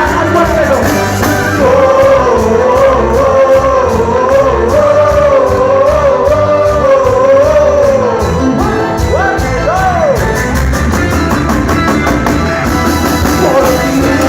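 Cuarteto band music: a wavering lead melody over a steady bass and drum beat, with a short gliding phrase about two-thirds of the way in.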